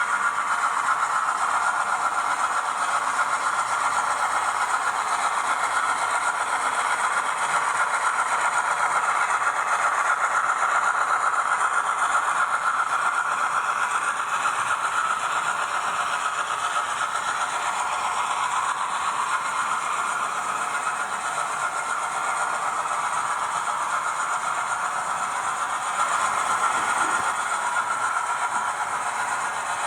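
Auscision Models 442 class model locomotive's DCC sound decoder playing a diesel engine sound through its small onboard speaker, running steadily with a thin, tinny tone and little bass, mixed with the model's running rattle.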